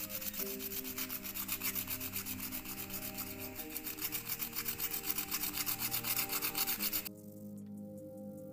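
Hand-sanding with folded sandpaper: quick, even back-and-forth strokes, about five a second, scratching over a small wooden lure blank coated with glass shards. The strokes stop abruptly about seven seconds in.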